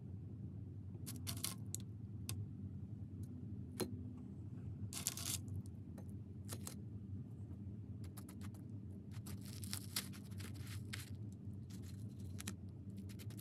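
Faint clicks and scrapes of metal tongs lifting flaky puff pastries out of an air fryer basket lined with baking paper and setting them down on a plate, over a low steady hum.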